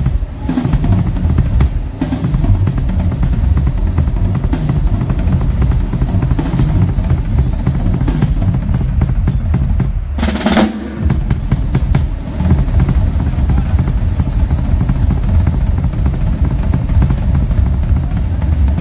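Drum kit played in a soundcheck: a fast, dense run of bass drum and snare hits, with a cymbal crash about halfway through.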